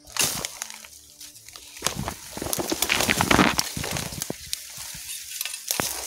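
Rustling and crackling of ferns, twigs and dry leaf litter as someone pushes on foot through dense forest undergrowth, loudest around the middle.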